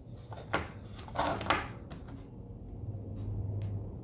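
A few light clicks and rustles from the temperature knob of a T12-X soldering station being turned up, with a faint low hum coming in near the end.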